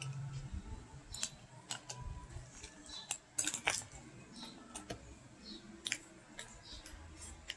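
Metal spoon stirring and scooping in a plastic cup of halo-halo, giving scattered light clinks and scrapes, with a quick cluster of louder clicks about three and a half seconds in.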